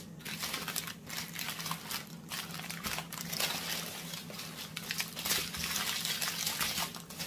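Connected strips of small plastic zip bags holding diamond-painting resin drills being unfolded and handled: continuous crinkling of thin plastic with many small crackles, the tiny drills shifting and rattling inside the bags.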